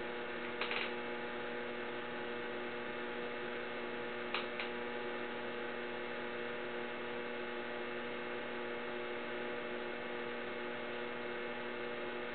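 Electric potter's wheel spinning with a steady electrical hum, with a faint click or two.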